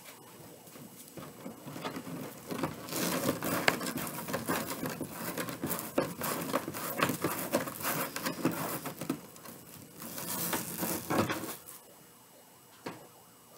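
Crinkly rustling and crackling of a roll of gold metallic craft mesh and its clear plastic wrapping being handled. It is dense and irregular, starts a couple of seconds in and stops near the end, and is followed by one light click.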